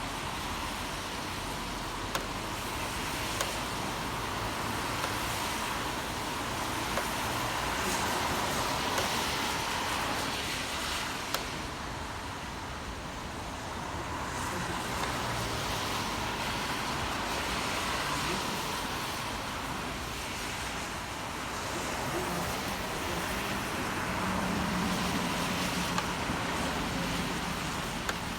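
City street traffic on a rainy day: a steady hiss of tyres on a wet road that swells and fades slowly as vehicles pass, with a few faint ticks and a low engine hum from a passing vehicle near the end.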